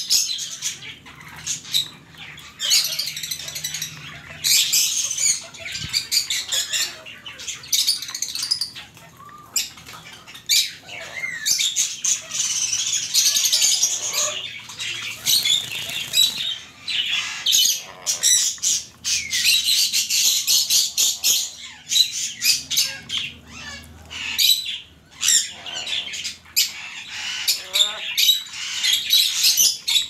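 Black-capped lory screeching: loud, harsh, high-pitched calls in quick runs with short pauses between them.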